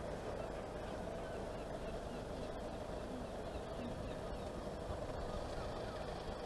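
UK level crossing yodel alarm warbling steadily at one pitch, with a low rumble underneath. It is the warning that sounds while the barriers are down for a train.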